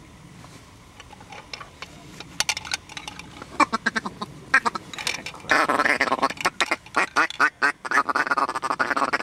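Mallard duck call blown by a hunter: scattered quacks at first, then about halfway in a loud, fast run of feeding chatter, calling incoming mallards to the decoys.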